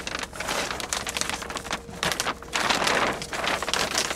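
Heavy metallised foil bag crinkling and crackling as it is pulled open by hand, in several bursts.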